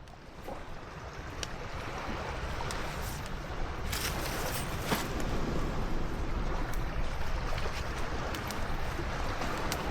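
Sea surf washing on a beach, a steady rushing noise with wind rumbling on the microphone, fading in over the first couple of seconds; a few faint short ticks sit on top.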